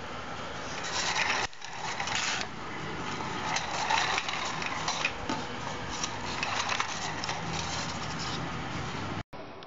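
Gravity-powered kit toy truck rolling across a tile floor, its plastic wheels and axles rattling with a stream of small clicks.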